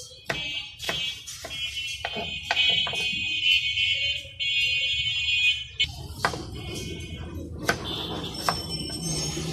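Kitchen knife chopping green chillies, then slicing an onion, on a wooden cutting board: a run of sharp taps, a few a second, that thins out about six seconds in. Over it sounds a shrill, high tone that is steady to about six seconds in and then comes and goes.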